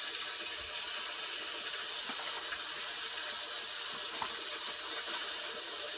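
Steady rain hiss from a rainstorm outside, with a few faint clicks.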